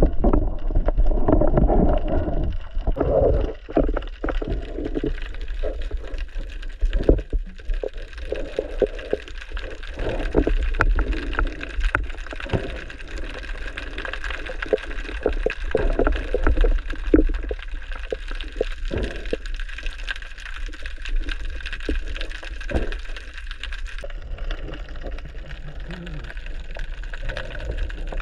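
Water gurgling and sloshing around a diver's action camera, a muffled low rumble scattered with sharp clicks and knocks.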